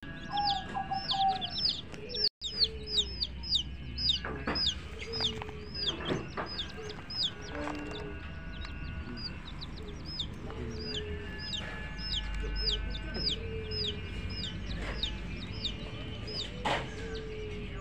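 A brood of chicks peeping without pause, each peep a short high note that falls in pitch, with a hen's low clucks now and then and a few sharp knocks.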